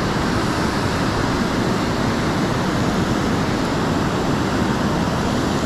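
Steady rush of fast-flowing river water from a power dam's outflow.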